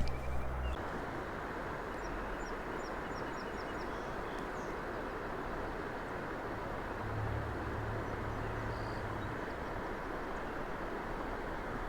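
Steady rushing outdoor background noise, with a short, quick series of faint high chirps about three seconds in and a low rumble swelling briefly near the middle.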